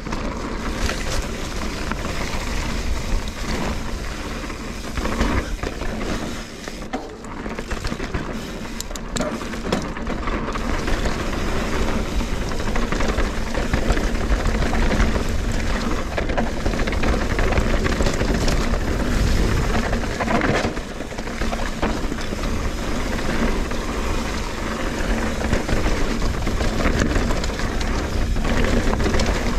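Full-suspension mountain bike (Trek Fuel EX 8) ridden fast down a dirt singletrack, heard through an action camera's microphone: a steady rumble of tyres and wind with scattered knocks and rattles as the bike hits bumps.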